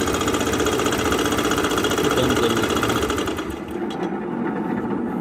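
Mahindra Gusto scooter's single-cylinder engine running with a fast, sewing-machine-like ticking rattle from its timing chain, the sign of a slack timing chain tensioner. The higher-pitched part of the clatter thins out over the last second or two.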